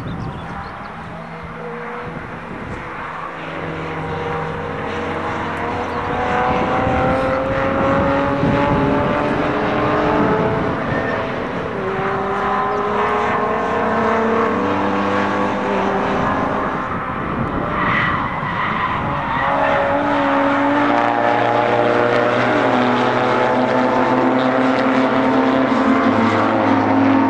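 Several circuit-racing cars' engines running hard through a corner, their pitches sliding up and down as they accelerate and change gear, several at once and louder in the second half.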